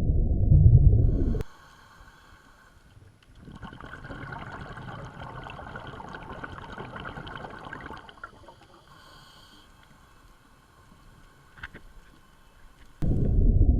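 Loud, muffled low rumble that cuts off suddenly about a second and a half in. It gives way to a much quieter stretch of water sound with faint steady tones, and the rumble returns suddenly near the end.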